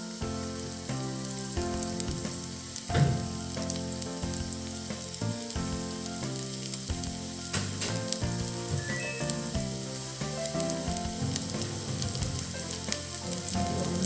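Chopped garlic sizzling and crackling in hot coconut oil in an iron kadai, still pale and at the start of browning for a curry tempering. Soft background music runs under it, and there is one short knock about three seconds in.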